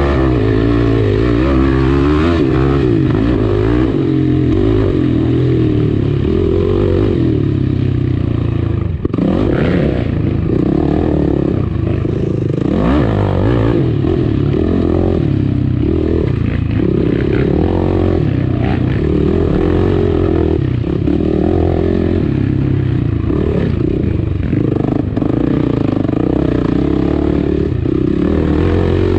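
Yamaha dirt bike engine running loud and close, revving up and down as the rider works the throttle through the trail, with chassis clatter over the bumps. The engine note drops briefly about nine seconds in, then picks up again.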